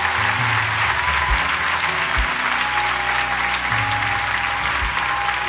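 Large crowd applauding steadily, with soft music of sustained tones and low bass notes underneath.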